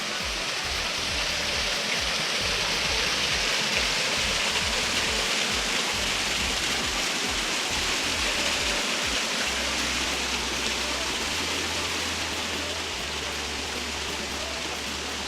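Waterfall pouring steadily into its pool: a continuous, even rush of falling water.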